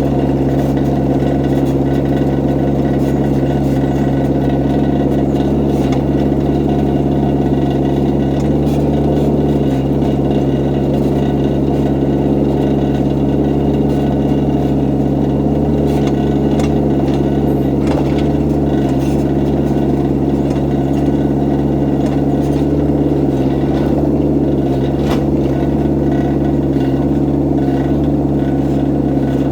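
An excavator's diesel engine running at a steady speed, with a few faint clicks along the way.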